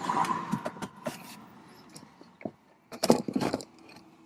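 Handling sounds of plastic car interior trim: short clicks, taps and scrapes as a footwell LED light housing is worked into place, with a small burst of clicks about three seconds in. A faint steady tone sounds in the first second.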